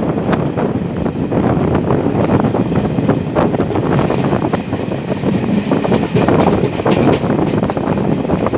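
Express passenger train running at speed, heard from aboard: a dense, steady rail rumble with irregular wheel clicks over the track, and wind on the microphone.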